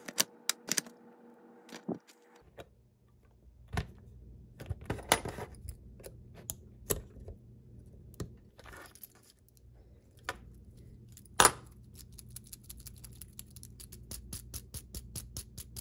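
Small plastic and metal clicks and taps as the parts of a model locomotive chassis are handled and pressed back together, a small metal tool working the motor's retaining clip into place. A faint low hum comes in about two seconds in, and a quick run of light clicks near the end.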